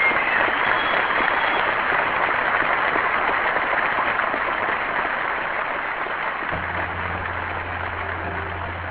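Audience applause, an even clatter that slowly fades. About two-thirds of the way through, music with a held low note and a few higher notes comes in under it.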